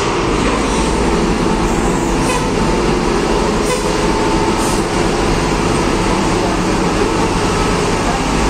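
Heavy diesel engine of an intercity coach running as the bus drives slowly past up close, a steady low rumble with a faint steady whine. A few faint knocks come a couple of seconds in.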